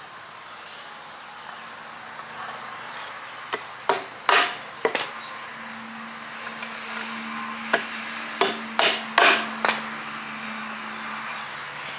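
Hammer driving nails into the wooden boards of a small bench: about ten sharp strikes in two bunches, the first about four seconds in and the second about eight seconds in. A steady low hum comes in about halfway through.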